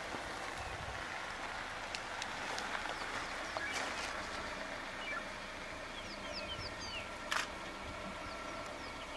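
Outdoor bush ambience: a steady hiss with a scatter of short, high, downward-curving bird chirps, most of them in the second half. A single sharp knock about seven seconds in is the loudest sound.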